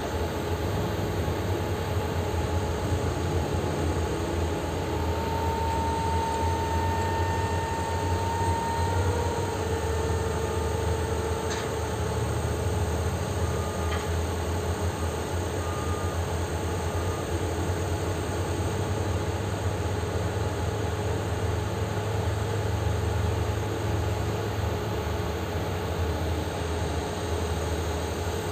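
Liebherr R9200 mining excavator's diesel engine running steadily close by, a heavy, low sound with a faint steady whine above it.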